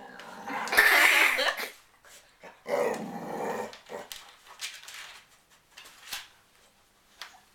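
Growling, bark-like vocal noises: two loud rasping growls about a second and about three seconds in, then a few shorter, softer ones.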